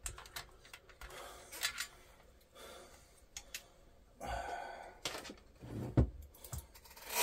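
Faint scattered clicks and light rubbing of metal parts as the video head drum of a Sony SL-HF100 Betamax deck is eased out of its mounting by hand, with a short breath about four seconds in and a sharper knock just before six seconds.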